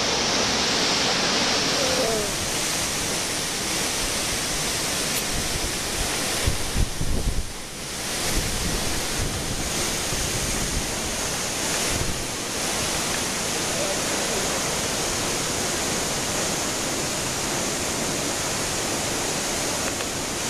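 Steady rushing roar of the Reichenbach Falls waterfall, with brief low rumbles around seven seconds in.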